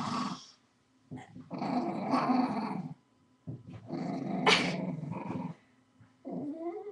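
A pet dog growling in repeated rough bouts of one to two seconds with short silences between, while being played with. Near the end the growl turns higher and wavering.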